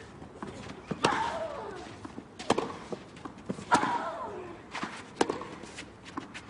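Tennis rally on a clay court: four sharp racket-on-ball strikes, about one every second and a half, with fainter ball bounces between them. Every other shot carries a player's grunt that falls in pitch.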